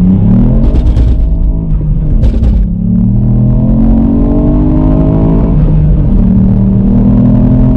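Ford Fiesta ST's turbocharged 1.5-litre three-cylinder engine, fitted with an induction kit, pulling hard under acceleration. The revs climb and fall back at upshifts several times, with a long steady climb in the middle, and two short hissing bursts in the first few seconds.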